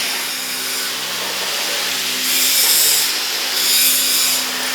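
Homemade stone-cutting saw running and cutting through a stone block: a steady motor hum under a hissing cut noise that swells louder twice.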